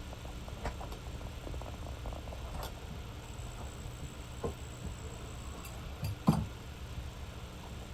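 Scattered small clicks and taps of fuel line and filter fittings being handled, over a steady low hum, with one sharper knock about six seconds in.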